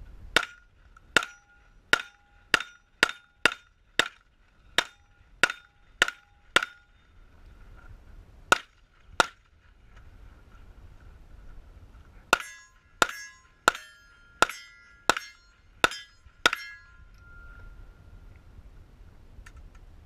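9mm Glock 17 in a Roni carbine conversion kit firing single shots in strings. About eleven come roughly half a second apart, then two after a pause, then about seven more in a quicker run.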